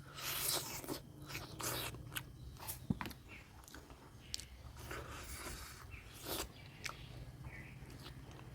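Close-miked eating of a mutton curry meal: wet chewing and biting with mouth smacks and sharp clicks at irregular intervals.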